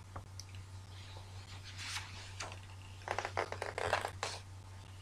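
Faint desk-handling noises: a few light clicks and rustles, with a short quick run of them about three to four seconds in, over a steady low hum.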